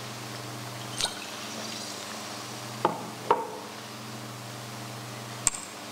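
Four sharp, drip-like plinks at uneven spacing over a steady low electrical hum.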